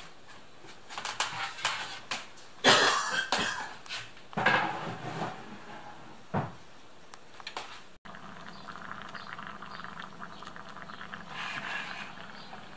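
Knocks and clatter of a pot and its lid on an electric hob, with two louder noisy bursts a few seconds in. Then pea soup with chicken bubbling steadily at the boil, a fine even crackle.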